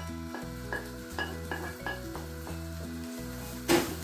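Chopped onions sizzling in hot oil as they go into a frying pan of cooked tuna and are stirred in with a wooden spoon, the spoon scraping and knocking the pan several times, most loudly near the end. Background music plays underneath.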